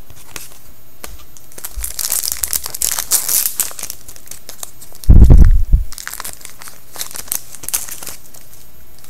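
Trading card pack wrapper being torn open and crumpled by hand, crinkling in two spells. A loud low bump about five seconds in.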